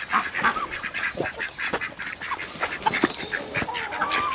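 A flock of ducks quacking, with many short calls overlapping one another.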